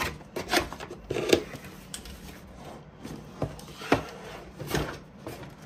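Packaging being handled while unboxing a mini RC drift truck: rustling, with five or so sharp light knocks and clicks spread through.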